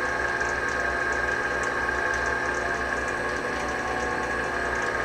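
Metal lathe running steadily under power, its spindle turning the jackshaft in the chuck while a 17/64-inch drill bit fed from the tailstock bores into the shaft's end. The machine gives a steady high tone over a low hum.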